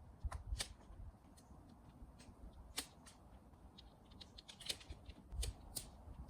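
Irregular light clicks and taps, several to a second at times, with soft low thumps underneath.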